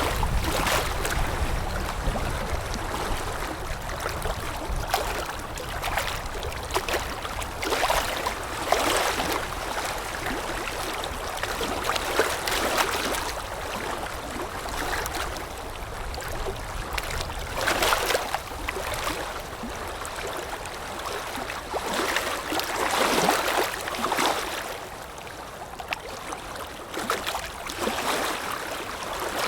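Small wind-driven waves lapping against the shore, with irregular soft splashes and gurgles every second or two over a continuous wash of moving water.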